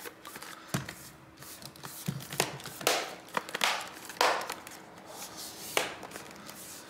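Plastic bottom cover of a Lenovo IdeaPad Flex 3i Chromebook pressed back onto the laptop, its retaining clips snapping into place one after another: about half a dozen sharp clicks, a second or so apart.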